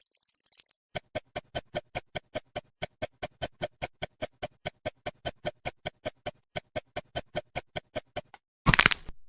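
Background music made of a steady ticking beat, about four ticks a second, with a high hiss at the very start and a short loud burst near the end.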